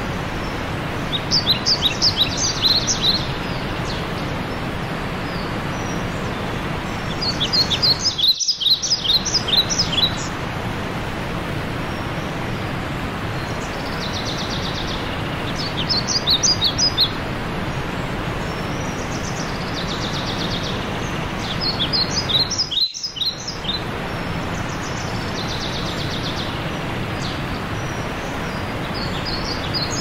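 A mountain stream rushing steadily down a rocky cascade, with a songbird singing a quick phrase of high notes every few seconds, about six times.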